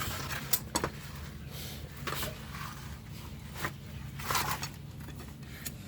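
A few short scrapes and clicks of hand tools and metal parts being handled, spread out over a steady low hum.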